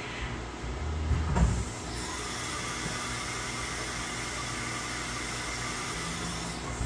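SYIL X7 CNC mill running inside its enclosure: a low thump about a second and a half in, then a steady hiss with a faint high whine.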